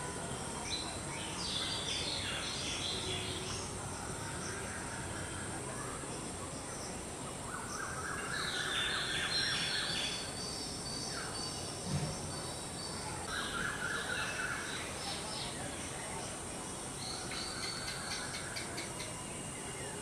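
Birds chirping and calling in several short bouts over a steady high insect drone, like crickets. A short dull thump about midway.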